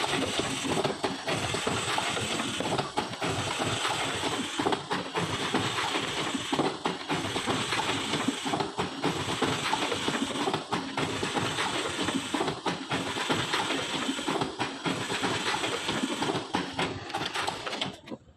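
Automatic shrink-wrapping machine running: a dense mechanical clatter with hiss, its cycle marked by a brief dip about every two seconds. It cuts off suddenly near the end.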